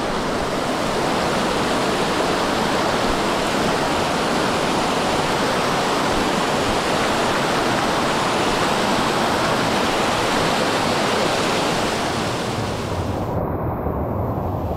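Mountain stream water rushing steadily over rocks and small falls. Near the end it turns duller, the hiss drops away, and a low rumble comes in.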